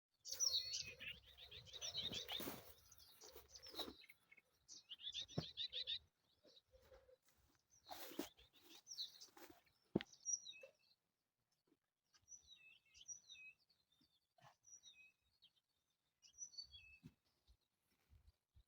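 Songbirds singing faintly: rapid chirping trills in the first few seconds, then short separate song phrases later on. A few brief bursts of noise and a single sharp click come about ten seconds in.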